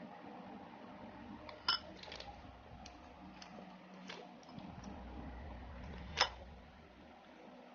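Metal spoon scraping thick white PVA glue into a glass bowl: faint sticky squishing, with two sharp clinks of the spoon against the glass, about a second and a half in and again about six seconds in.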